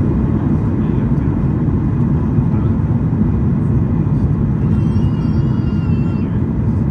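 Steady roar of a Boeing 737's jet engines and rushing air, heard inside the cabin at a window seat by the wing on approach. A faint, high-pitched wavering tone sounds for about a second and a half, about five seconds in.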